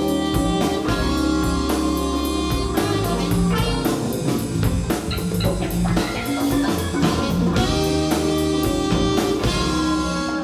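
Live band playing a full ensemble passage: alto saxophone, electric guitar, Hammond organ and keyboards, bass, drums and percussion, with a steady beat.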